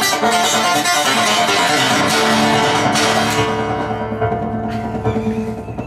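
Solo acoustic guitar, picked in a quick run of notes. About three seconds in it settles into a held chord left ringing and fading, the closing chord of the song.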